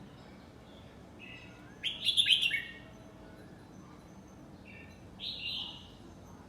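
Caged red-whiskered bulbul singing: a loud burst of song about two seconds in, then a shorter phrase about five seconds in.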